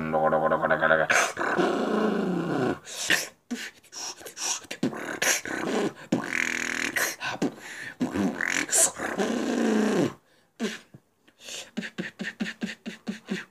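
Robotic-style vocal beatboxing imitating an electric current, performed into cupped hands. It mixes buzzing, gliding electronic-sounding tones and growls with sharp clicks. About ten seconds in it switches to a fast string of short clicks.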